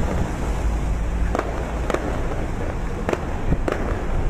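Fireworks going off: about half a dozen sharp, irregularly spaced bangs over a steady low rumble.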